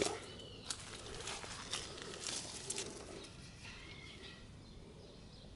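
Footsteps on dry leaf litter, about two a second, thinning out after about three seconds as the walker comes to a stop, with a few faint bird calls.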